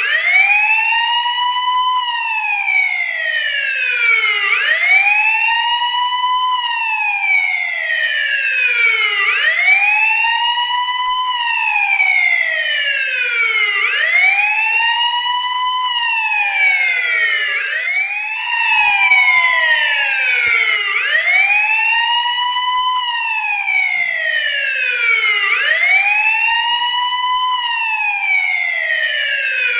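Police siren wailing: the pitch climbs quickly, then falls more slowly, repeating about every four and a half seconds. A second wail overlaps it slightly out of step.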